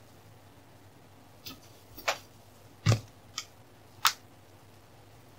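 About five short, sharp clicks and taps at uneven intervals, the loudest about three and four seconds in.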